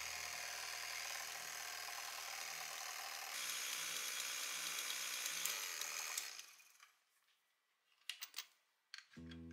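KitchenAid stand mixer whisking in a stainless steel bowl: a steady motor and whisk whir that gets louder about three seconds in, then winds down and stops around six seconds in. A few light clicks follow.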